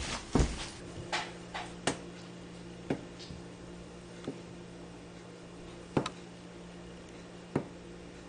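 Kitchen knife slicing through a sushi roll on a plastic cutting board, each cut ending in a sharp knock of the blade on the board: several knocks at uneven intervals, a faint steady hum underneath.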